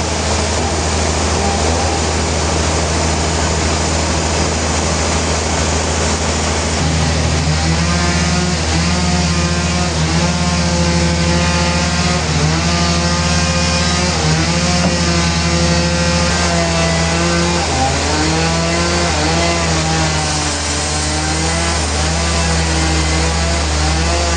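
Sawmill saw running loud and steady with a constant low hum; from about seven seconds in its pitch shifts up and down as it works through a Trembesi log.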